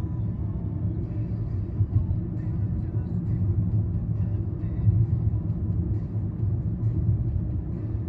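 Steady low road rumble of a moving car, heard from inside the cabin.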